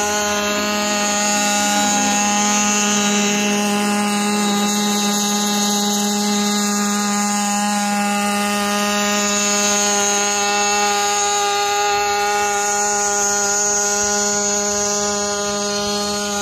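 eirobotix D130 X4 ICE-hybrid multirotor drone in flight, giving a steady buzzing hum held at one pitch with a row of overtones above it.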